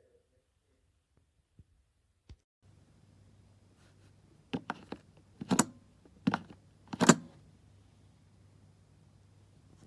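A handful of sharp clicks and knocks, several in quick pairs, over a faint low hum that comes in a little before them.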